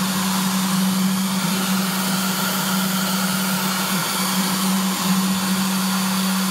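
Desktop CNC router running: its spindle motor gives a steady hum with a hiss above it as the head is moved along the axes. The hum dips briefly in pitch twice, about four and five seconds in.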